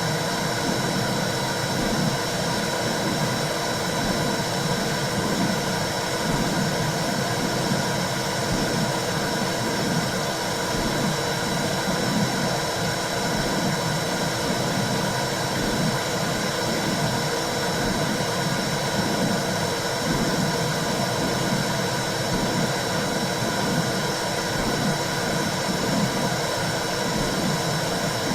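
Womb sound for calming a baby: a steady rushing noise with a low whoosh that pulses at an even rhythm, about once a second, and a faint steady high tone above it.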